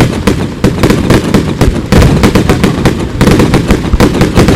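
Fireworks going off in a rapid, continuous barrage: several sharp bangs a second, overlapping into a steady crackling rattle.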